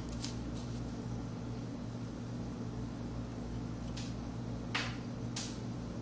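Hard alloy seal-engraving knife scraping into a Changhua soapstone seal: a few short, sharp scratches, two just after the start and three more about four to five and a half seconds in. A steady low hum runs underneath.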